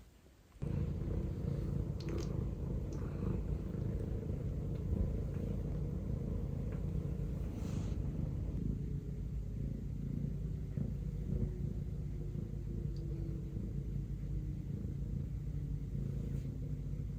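Domestic cat purring close to the microphone, a steady low rumble that starts abruptly about half a second in, with a few faint rustles and clicks over it.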